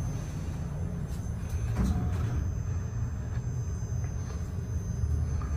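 Modernized Otis traction elevator's car doors sliding shut with a short knock about two seconds in, then the car travelling with a steady low rumble that grows louder near the end.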